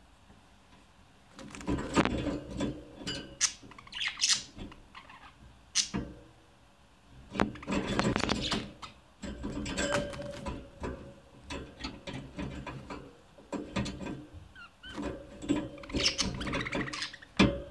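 Budgerigars chattering: a scratchy warble of clicks and short chirps in irregular bursts, starting about a second in, with short quiet gaps between.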